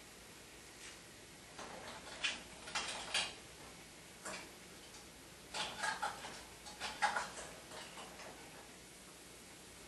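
Light clicks and clinks of canning jars, lids and metal kitchen utensils being handled: a scattering of short, sharp ticks with quiet gaps between them.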